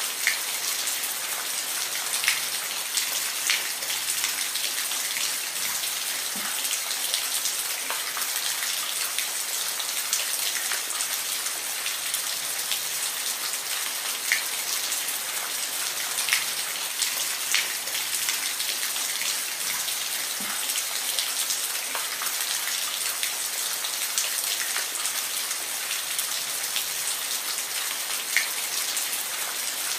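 Steady rain falling, an even hiss with scattered louder drops ticking on a surface.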